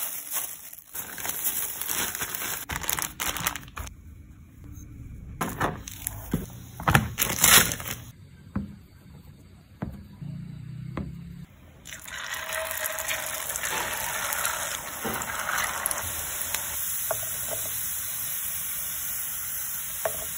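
Kitchen prep sounds: sharp knocks and rustles as potato dough is handled with a plastic-gloved hand, then a few faint knife cuts through the dough on a plastic cutting board. About twelve seconds in, potato sticks start sizzling steadily in hot oil.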